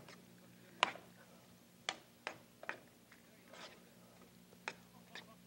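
Spoon stirring a thick chicken-and-cream-sauce filling in a skillet, with faint scattered clicks and knocks of the spoon against the pan, about seven in all.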